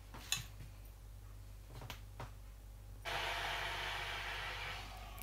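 A few faint clicks, then from about three seconds in a steady hiss from a steel pan of water heating on a gas stove burner.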